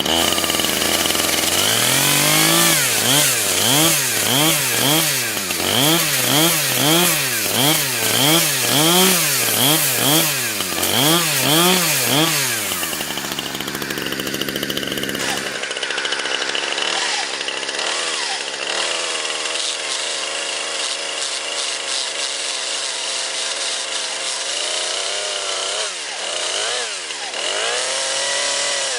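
Chainsaw revving hard up and down about once a second as it cuts into a smartphone held in a vise. After an edit it runs steadier, with a few more revs near the end.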